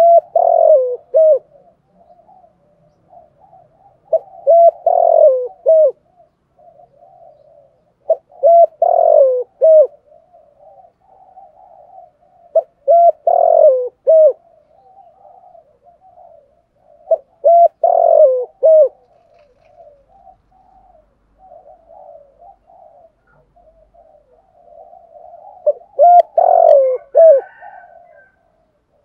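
Spotted dove cooing: six loud phrases of a few quick notes each, coming about every four seconds with a longer pause before the last, and softer low cooing in between.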